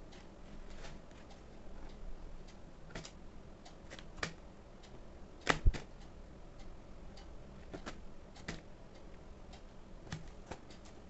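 Light, irregular taps and clicks of fingers handling a paper-covered cardboard box, with a louder double knock about five and a half seconds in.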